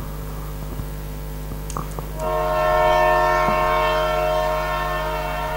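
Train horn sound effect: one long steady multi-tone blast, starting about two seconds in and lasting about three and a half seconds, over a low mains hum.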